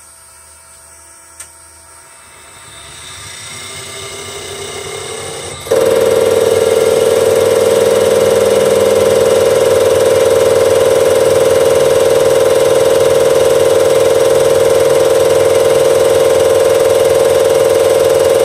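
Diesel injector test bench running a Bosch piezo common-rail injector: a low hum and a single click, then a rising whine as the bench builds pressure. About six seconds in it jumps suddenly to a loud, steady buzz and hiss as the injector starts firing under test.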